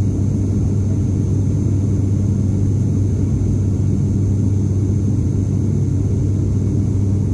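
Steady drone of an ATR 72-600's Pratt & Whitney PW127 turboprop engine and six-bladed propeller heard inside the passenger cabin at climb power, with a strong constant low hum from the propeller blades.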